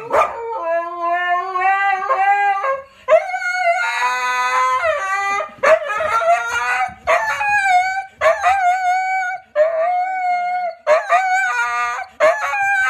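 Husky howling in a string of long, wavering calls, about nine of them, separated by short breaks.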